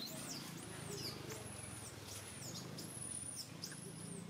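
Baby macaque crying: a run of thin, high-pitched squealing calls, each rising, holding and dropping away, about two a second.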